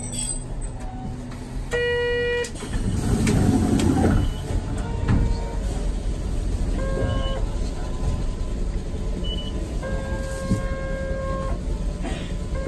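Electronic beeps and chime tones from a tram's fare box and IC-card reader as passengers pay on leaving: a loud tone about two seconds in, short high beeps, and shorter chimes every few seconds. A brief rattle about three seconds in, over the stopped tram's steady low hum.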